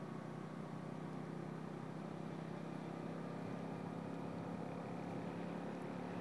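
A vehicle's engine running steadily with road noise while driving along a road, a low even hum.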